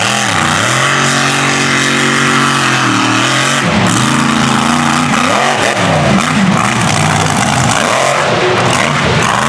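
Mega truck engine revving at high throttle while racing. The pitch climbs at the start and holds, drops about three seconds in, then rises and falls repeatedly, climbing again near the end.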